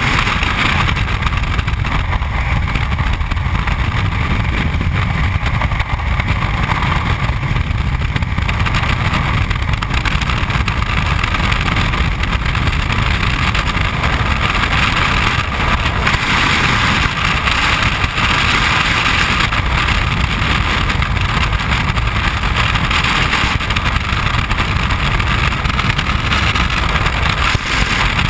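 Freefall wind rushing over the camera's microphone: a loud, steady rush of air with no let-up.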